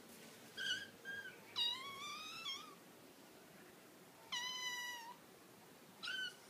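Kittens meowing over and over while begging to be fed: five high-pitched meows. Two are short, one near the start and one about a second in, two are longer, near two seconds and just past four seconds, and a last short one comes near the end.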